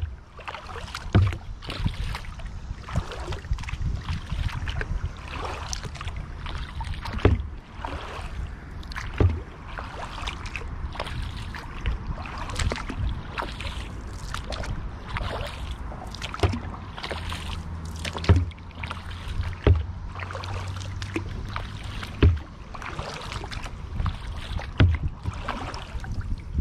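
Paddling a Wilderness Systems Tsunami 120 sea kayak across calm lake water: paddle blades dipping and splashing, water dripping and rushing along the hull. A short low knock comes every few seconds.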